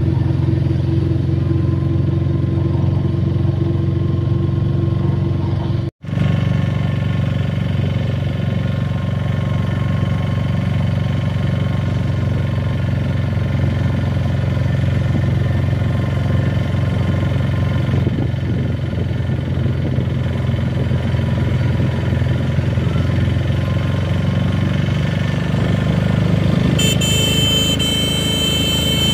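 A motor vehicle's engine running steadily on the move, with road noise, cutting out briefly about six seconds in.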